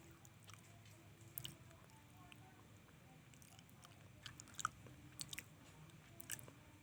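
A cat chewing crunchy food: faint, irregular crunches and clicks, the sharpest about four and a half seconds in.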